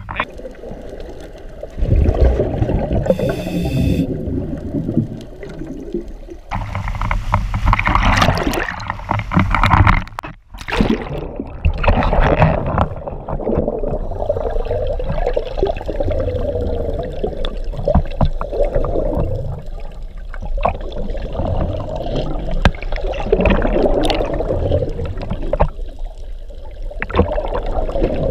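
Muffled underwater sound heard through a camera's waterproof housing: rough water churning and bubbling, swelling and easing unevenly.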